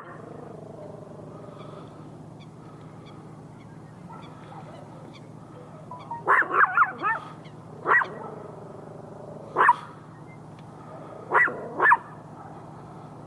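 Loud, short animal calls over a steady low hum: a quick run of calls about six seconds in, then single calls, and a pair near the end.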